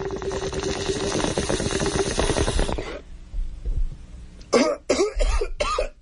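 Bong hit: water bubbling steadily through a bong for about three seconds as smoke is drawn, then a run of harsh coughs starting about four and a half seconds in.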